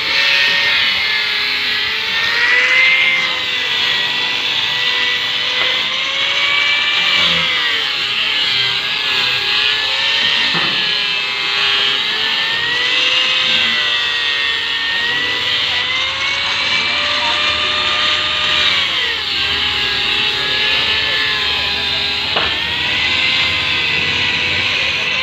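Handheld electric grinder running on a sofa, its motor whine sagging in pitch and picking back up every few seconds as it is pressed into the work and eased off, over a continuous grinding hiss. Two sharp knocks come through, about ten seconds in and again near the end.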